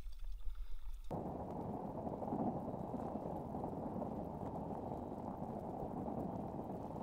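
Muffled, steady water noise from a kayak moving over calm water, starting abruptly about a second in, with faint scattered ticks and drips.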